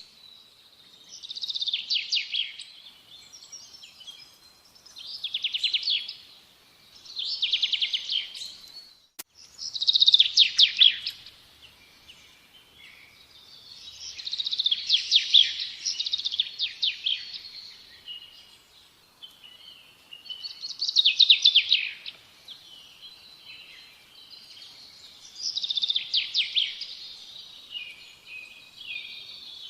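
A songbird singing in repeated trilling phrases, each a second or two long, with short pauses between them.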